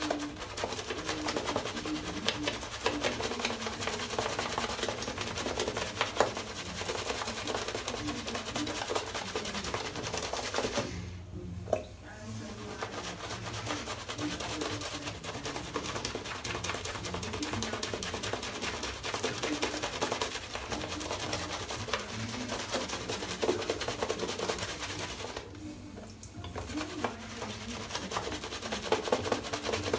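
Wolf Whiskers synthetic shaving brush working a thick lather over the face and neck: a continuous wet, crackly swishing made of rapid fine clicks, stopping briefly twice.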